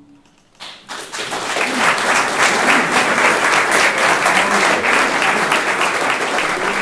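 The last held chord of a male choir dies away, and about half a second in, audience applause breaks out, swells quickly and carries on steadily.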